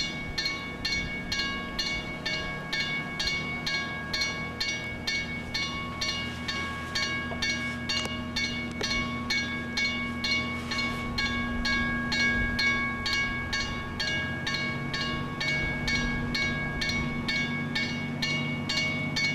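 Background music with a steady, quick beat and held notes that change every second or two.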